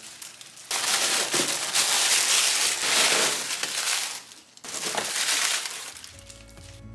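Honeycomb kraft paper packing rustling and crinkling as it is handled and pulled out of a cardboard box, in two long stretches with a short pause between. Soft music comes in near the end.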